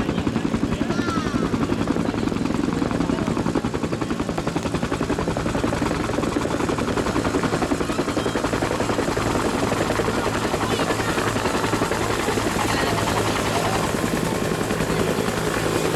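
Bell UH-1 Huey helicopter hovering and flying low and close, its two-blade main rotor beating out a steady, rapid thudding over the engine.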